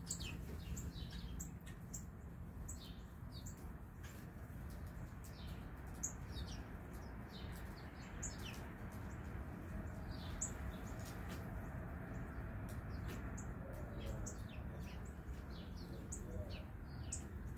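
Songbirds chirping, about two short high chirps a second, each dropping quickly in pitch, over a steady low rumble.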